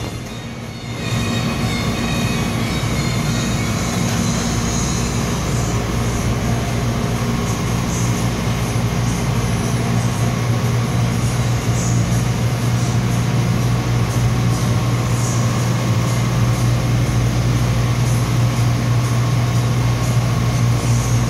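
Refrigerated display case running: a steady low mechanical hum with an even hiss over it, dipping in level for a moment just after the start.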